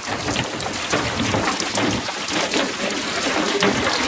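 Water and blue catfish pouring out of a stocking truck's tank and splashing into the lake: a steady, dense splashing with many small crackling splashes.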